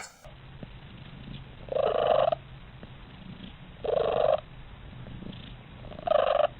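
A domestic cat purring, a low steady rumble, with three louder rasping surges about two seconds apart.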